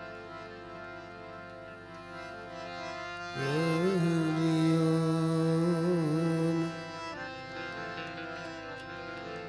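Harmonium playing sustained reed chords for a devotional bhajan, with a singer's voice holding one long, wavering note from about three and a half seconds in until near seven seconds, which is the loudest part.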